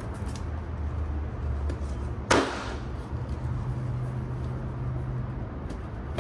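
A paperboard box sliding against its cardboard shipping tray: one short, loud scrape about two seconds in, over a steady low rumble.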